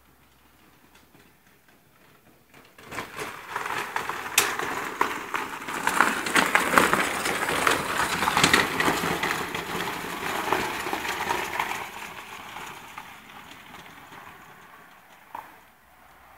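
Small electric ATV approaching and passing close by, its tyres crunching over loose gravel. The crunching rises about three seconds in, is loudest midway and fades away, with a single sharp click near the end.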